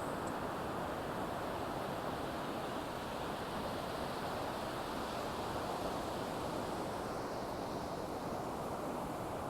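Ocean waves washing on the shore in a steady, unbroken rush, with some wind.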